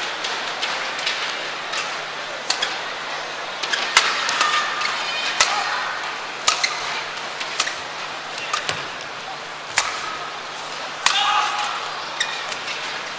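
Badminton rally: sharp racket strikes on the shuttlecock about every half-second to second, with a few short shoe squeaks on the court, over a steady crowd murmur.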